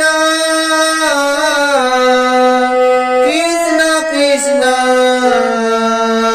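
Harmonium playing a slow devotional melody of long held notes that step from pitch to pitch, with a man's voice singing along.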